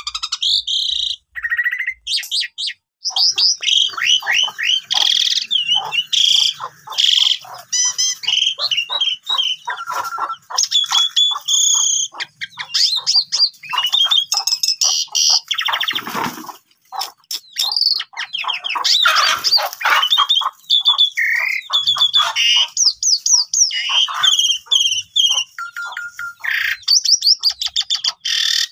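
A caged Javan pied starling (jalak suren) singing a long, loud, near-continuous song. It is a rapid medley of chattering, whistled and squeaky notes and mimicked phrases, with a few harsh rasping notes mixed in and one short pause near the start.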